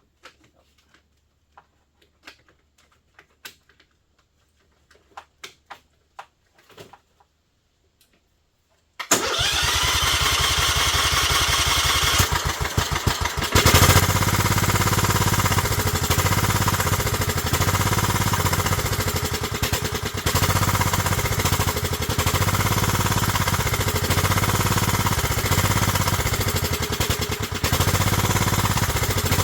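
Faint clicks and taps of handling, then about nine seconds in a 1998 Kohler Command 16 hp lawn mower engine is cranked and starts. It runs unevenly for a few seconds, then settles into steady running, its first run after sitting parked for a year.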